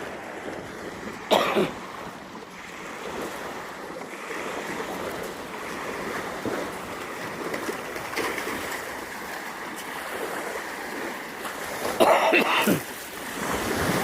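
Surf breaking on a beach with wind on the microphone, a steady wash of noise. It is cut twice by short, loud vocal sounds like coughs: one about a second in, and a louder one near the end.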